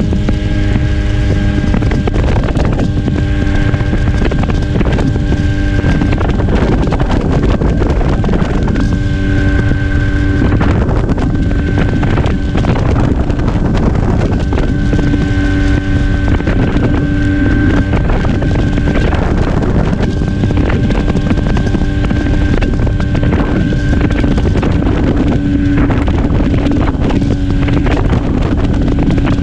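Vespa PX80 scooter's single-cylinder two-stroke engine, fitted with a DR 136 cc Krüger cylinder kit, running steadily while riding on the road. Heavy wind rumble on the microphone sits under the engine note.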